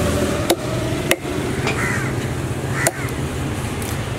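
A cleaver chopping through fish onto a wooden block: three sharp chops, two close together in the first second or so and a third a little before the end. A low steady hum runs underneath.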